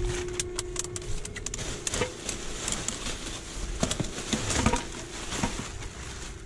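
Plastic garbage bags rustling and crackling as gloved hands push through them and pull out items, with many short sharp crinkles. A faint steady hum runs underneath.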